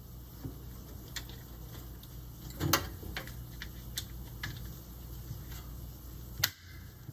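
Scattered light clicks and taps from washer parts being handled and turned, with a louder knock a little under three seconds in and another near the end, over a low steady hum.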